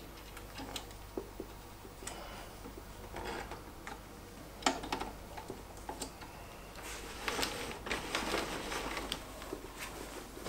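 Faint, scattered small metal clicks, taps and scrapes of a split pin being fitted by hand into the top end of an Evolution R255MTS table saw's elevation crank shaft. The clicking gets busier and rattlier about seven seconds in.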